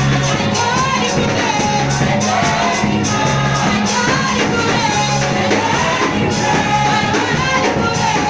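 Christian worship song: voices singing a melody over repeating bass notes and a steady drum beat.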